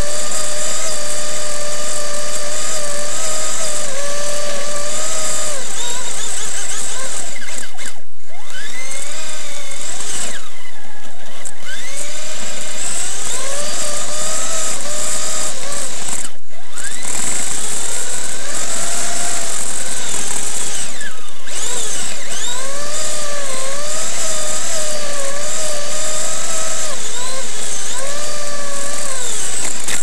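Kyosho Blizzard RC snowcat's electric motor and gear drive whining, picked up close by its onboard camera. The whine rises and falls in pitch with the throttle and drops out briefly several times.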